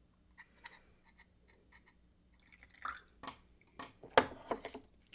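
Tea dribbling and dripping from a small red clay teapot, followed by a few sharp ceramic clinks as the clay pot and its lid are set down on the tea tray. The loudest clink comes a little after four seconds in.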